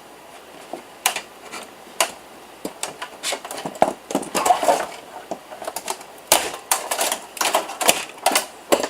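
Irregular metallic clicks, taps and clatters of a desktop PC tower's steel and metal parts being handled and taken apart, coming faster and closer together in the second half.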